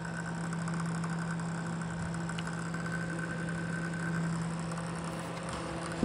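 SmartDevil small USB desk fan running with a steady motor hum and a fast, even buzzing rattle. The rattle comes from the poorly balanced, loose fan blade.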